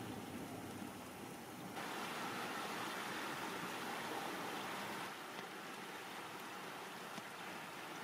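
Strong wind blowing over open snowy moorland, a steady rushing noise that suddenly grows louder and brighter about two seconds in and eases slightly about five seconds in.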